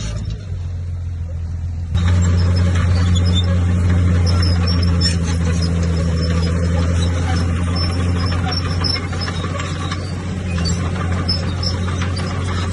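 Bulldozer's diesel engine running steadily with a low drone, with faint high squeaks and clinks over it; the sound jumps louder abruptly about two seconds in.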